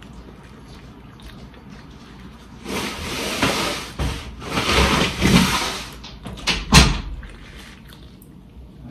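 Paper wrapper around a burger rustling as it is handled, in two stretches of a second or two, followed by two sharp crackles; the second crackle is the loudest moment.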